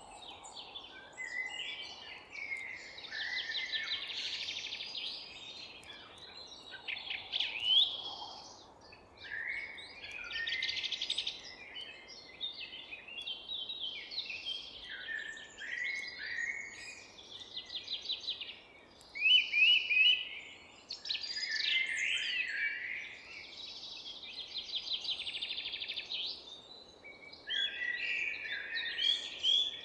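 Several songbirds singing at once in a forest: overlapping warbled phrases, quick trills and sharp rising chirps, one song after another with hardly a gap, over a faint steady background hiss.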